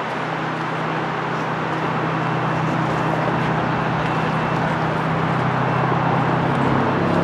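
Steady vehicle noise: a low engine hum over a wash of traffic sound, growing slowly louder.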